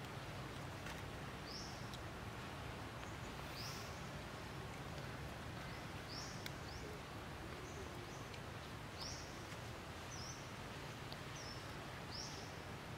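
Short, high bird chirps repeating about every one to two seconds over a steady low background hum, with a couple of faint clicks.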